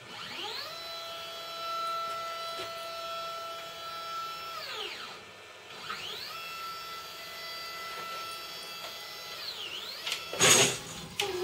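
NEMA 23 stepper motors driving the CNC axis in two jogged moves. Each move starts with a whine that rises in pitch as the motors speed up, holds steady for a few seconds, then falls away as they slow to a stop. About ten seconds in there is one short, loud knock, followed by a smaller click.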